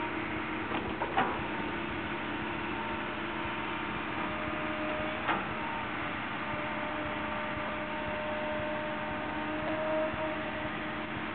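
Caterpillar 312 long-reach excavator working in mud, its diesel engine running at a steady hum with two brief sharp clanks, one about a second in and another about five seconds in.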